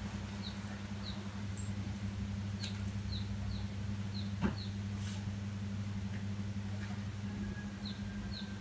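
A small bird chirping: short high chirps in loose runs, about two a second, over a steady low hum. A few faint knocks.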